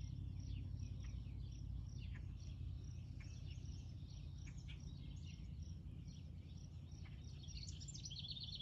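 Wild songbirds chirping and calling, with a quick trill near the end, over a steady low rumble.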